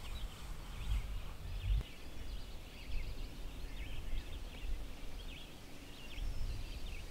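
Several birds singing, many short chirps overlapping, over a low outdoor rumble.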